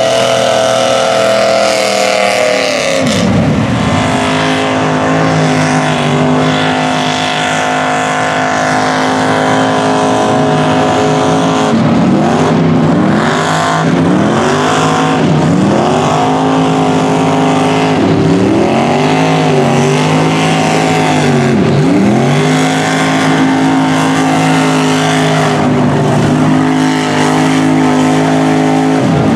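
Lifted mud trucks' engines running hard at high revs while their tires churn through a mud and water bog. About three seconds in the engine pitch drops sharply, and through the middle the revs rise and fall again and again, about once a second, as the throttle is worked.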